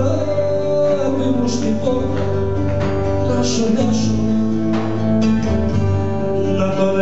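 Live Cretan folk music: a laouto and an acoustic guitar playing together, plucked notes over a steady accompaniment.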